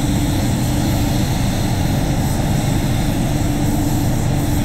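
Gravity-feed spray gun hissing steadily as it sprays clear coat, over the low, even rumble of the spray booth's airflow.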